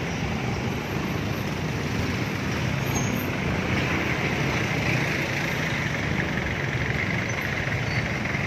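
Steady mixed engine and traffic noise, heard from a Yamaha NMAX scooter moving slowly through heavy city traffic alongside jeepneys and cars. A brighter hiss grows stronger from about halfway through.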